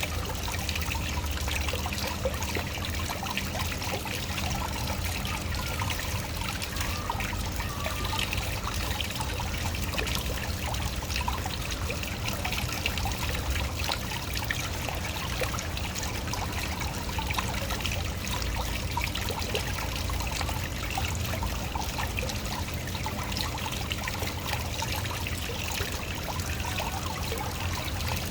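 Waterfall: water falling and trickling with a steady, unbroken rush.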